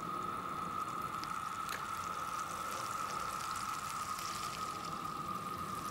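Butter melting in a frying pan over a gas flame, bubbling with a soft, steady sizzle and a few faint crackles. A steady high-pitched whine sits under it.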